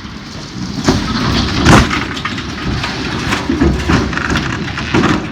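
Harvestore silo of glass-fused steel panels crashing to the ground: a long rumbling crash full of sharp cracks and crumpling metal. It starts about a second in, is loudest just after, and breaks off near the end.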